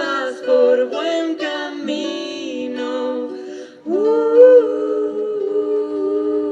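Wordless singing in several-part harmony, humming and vocalising with no lyrics, breaking off about four seconds in into a long held sustained chord.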